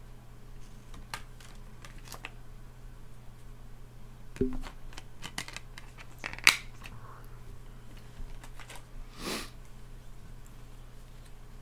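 A clear plastic disc case, its paper artwork and a slipcover being handled: scattered clicks and rustles over a steady low hum, with a knock about four seconds in, a sharp click a couple of seconds later, and a short sliding swish near the end.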